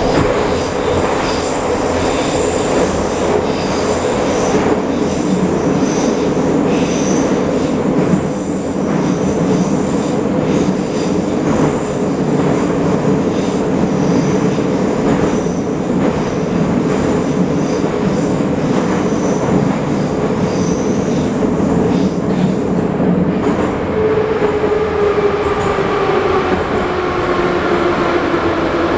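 Running noise inside a moving 81-717.5 metro car in a tunnel: a steady rumble of wheels on rail. Over the last few seconds a whine falls in pitch.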